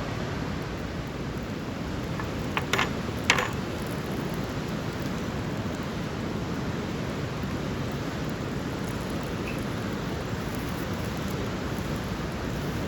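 Steady rushing outdoor noise, with two short sharp knocks about half a second apart roughly three seconds in.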